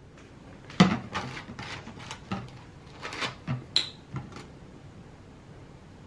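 A run of light knocks and clicks over about four seconds, with one short ringing clink near the middle: a soy sauce bottle and a plastic measuring spoon being handled over a pot.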